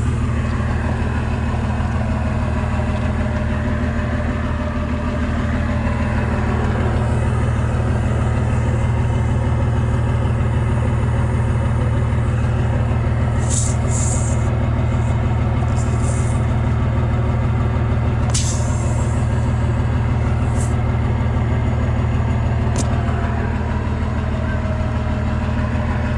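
A vehicle engine idling steadily close by, with a few short hisses in the middle and later part while a tyre is being plugged.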